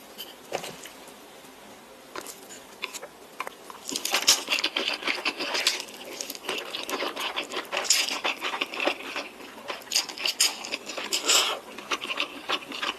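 Close-up clicks and scraping of utensils and food in a bowl: a few light clicks at first, then from about four seconds in a dense run of sticky clicks and scrapes, typical of spicy instant noodles being handled and mixed for eating.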